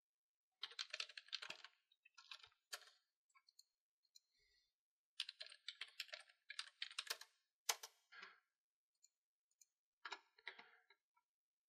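Faint typing on a computer keyboard: several short bursts of keystrokes with pauses between them.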